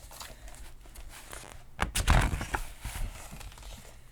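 Handling of the picture book: a short cluster of soft knocks and a rustle about two seconds in, over faint room sound.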